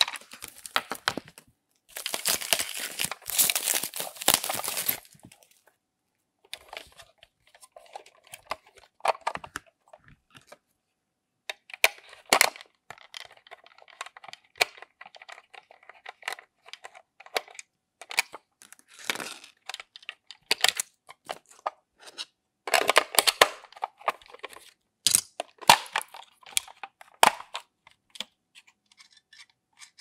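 Foam mesh packing sleeves being pulled off plastic toy appliances, crinkling and rustling, with a long stretch early on and another shorter one about three quarters of the way through. In between come many sharp clicks and taps of hard plastic toy parts being handled, including a toy fridge being turned over and opened.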